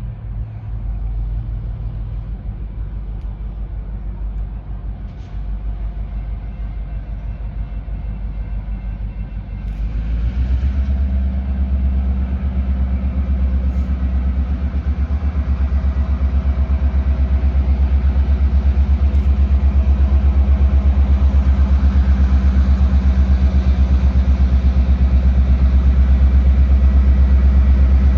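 Diesel locomotive engine of a Norfolk Southern GP38-2 (an EMD 16-cylinder two-stroke diesel) running with a deep, fast-pulsing rumble. It grows louder about ten seconds in and stays loud as the locomotive comes close.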